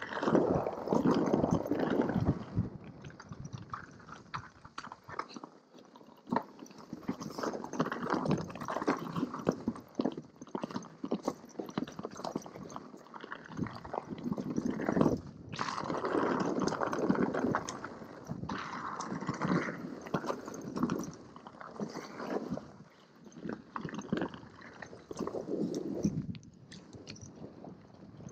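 Mountain bike tyres rolling and crunching over a snow-dusted dirt trail, with the bike chattering over bumps. The sound is uneven, with louder rough stretches.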